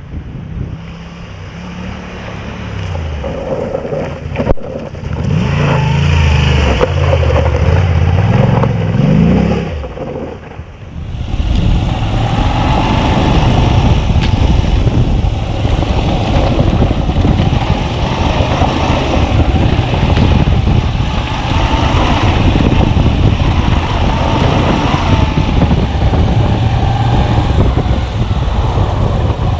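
Moto Guzzi V85 TT's transverse V-twin ridden along a dirt track, its engine note rising and falling as the bike comes closer and louder. After a cut about eleven seconds in, the onboard sound of the V-twin running over a gravel track, with a steady rumble of track and wind noise.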